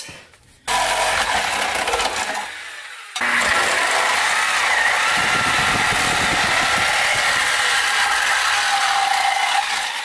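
Handheld power saw with a long thin blade cutting through the sheet metal of a Mustang's lower torque box. It runs briefly, stops, then cuts steadily for several seconds until near the end.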